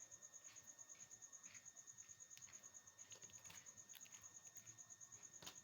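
Faint insect chirping: a high, even pulsing trill at about nine pulses a second, with a few faint clicks.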